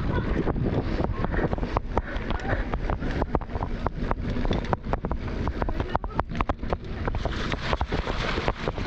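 Mountain bike riding fast down a dirt trail: wind buffets the microphone, the tyres rumble over rough ground, and the chain and frame rattle and clatter continuously over the bumps.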